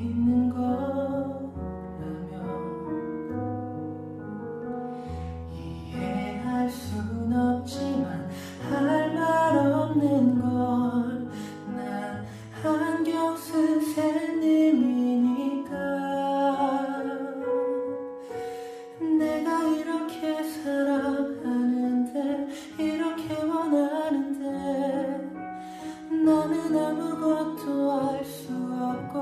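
Man singing a slow ballad over piano accompaniment.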